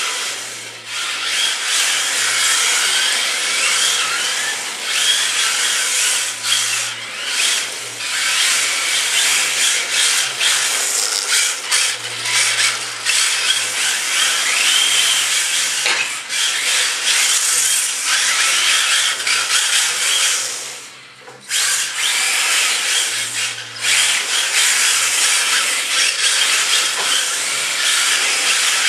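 Two Tamiya TT-01E radio-controlled touring cars driven hard, their brushed Axial 20-turn electric motors whining up and down in pitch with the throttle while the tyres scrub through drifts. The noise drops away briefly about 21 seconds in, then picks up again.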